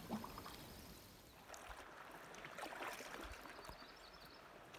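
Faint water sounds of a canoe being paddled: the paddle dipping and dripping, with small splashes a little louder around the middle.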